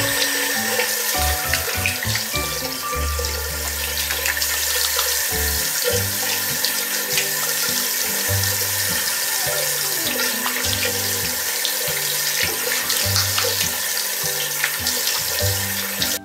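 Water running steadily from a faucet into a bathroom washbasin, splashing over a cat's hindquarters as they are washed by hand under the stream.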